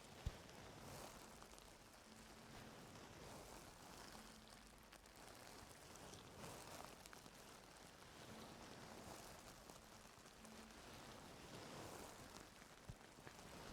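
Faint, close-up scratching and crackling of ear-cleaning tools working in an ear canal, in soft irregular swells, with one sharp click just after the start.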